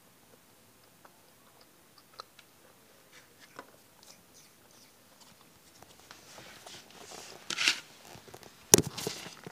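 Someone chewing sugar-coated gummy candies, faint mouth clicks at first, growing into louder close rustling near the end. A sharp knock near the end is the loudest sound, as the phone filming is handled and set down.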